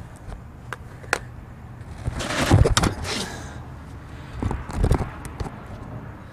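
Handling noise from an action camera being moved about under a truck: a few light knocks, then two louder scraping rustles about two and a half and five seconds in.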